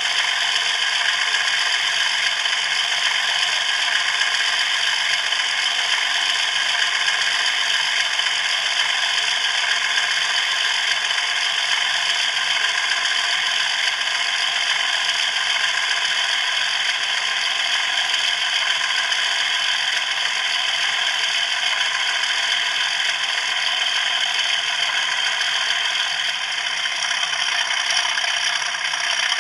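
Model railway running noise: a steady, even, whirring mechanical rattle of small motors and gears.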